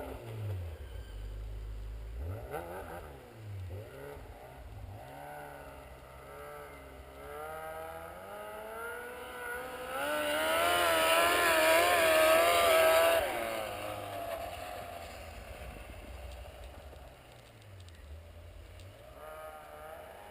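2007 Yamaha Apex MTX snowmobile's four-stroke engine running as the sled rides by: the engine note wavers up and down as it comes closer, is loudest a little past halfway, then fades away.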